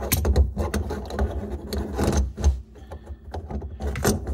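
Metal clinking and rattling of a stainless steel thumb-screw basket strainer's retaining ring and its loose screws being handled and slipped up over the threaded strainer body. The clicks come thick for the first two and a half seconds, then thin out, with a sharp click about four seconds in.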